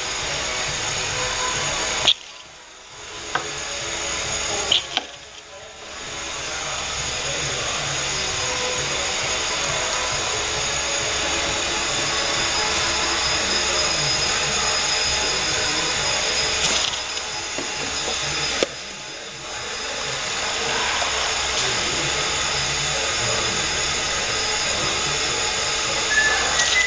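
Vacuum bottle-filling machine running: a steady loud hiss and whir from its vacuum system. It drops away briefly three times, about two, five and nineteen seconds in, each drop starting with a sharp click.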